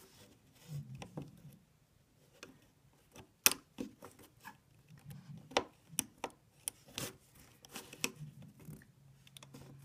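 Scattered sharp clicks and taps of a plastic crochet hook and rubber bands against the plastic pegs of a rainbow loom as bands are hooked off a crowded peg, the loudest click about three and a half seconds in.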